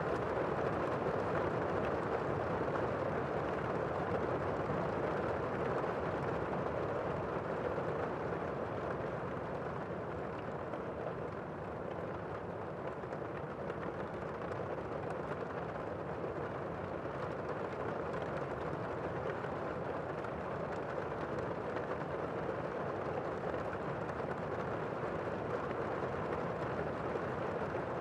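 Tornado winds roaring steadily, easing slightly midway and building again.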